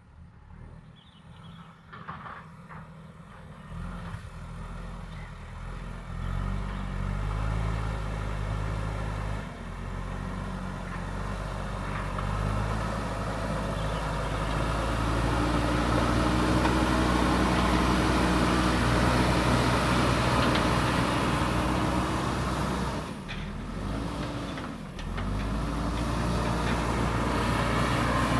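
JCB backhoe loader's diesel engine, quiet at first and then revving up under load over the first several seconds, holding steady at high revs, and dipping briefly twice near the end.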